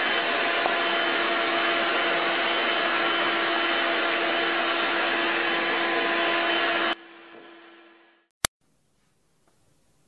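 Stick vacuum cleaner running steadily with a constant whine over its motor noise. It stops abruptly about seven seconds in, a fainter hum fades away, and then there is a single sharp click before near quiet.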